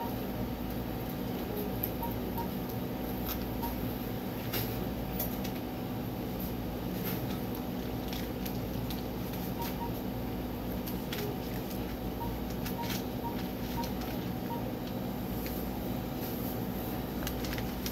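Steady hum of a convenience store's refrigerated display cases and air conditioning, with scattered light clicks and knocks from items being handled at the counter and a few faint short beeps now and then.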